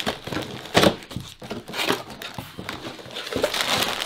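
Crinkling and rustling of a LEGO set's packaging as the box is opened and its plastic parts bags are handled, with several sharp clicks in between; it is busiest near the end.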